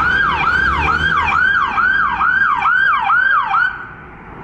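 Police SUV siren in a fast yelp, sweeping up and down about two and a half times a second. It stops about three and a half seconds in, leaving a fainter rushing road noise.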